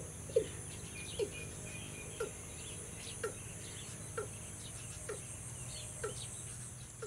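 Watercock calling: a series of short notes, each dropping slightly in pitch, repeated at about one a second and growing fainter. A steady high insect drone and faint chirps of other birds run behind.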